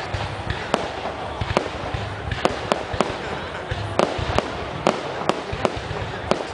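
Fireworks display: aerial shells bursting in irregular succession, with sharp bangs about two a second over a steady wash of background noise.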